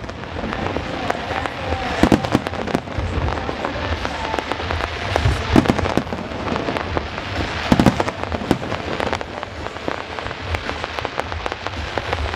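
Aerial fireworks bursting: a dense crackle runs throughout, broken by many sharp bangs, with several louder booms spread through it.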